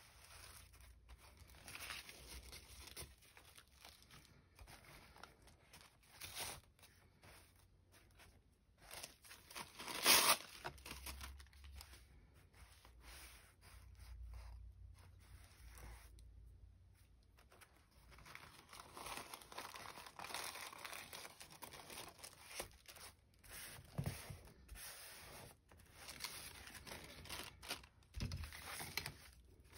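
Thin collage paper being torn, rustled and smoothed down by hand onto a sketchbook page in irregular bursts, loudest about ten seconds in, with a couple of short knocks near the end.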